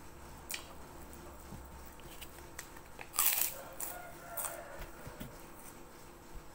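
Crisp crunching of a kerupuk cracker being broken and eaten, a few short crunches with the loudest a little after three seconds in.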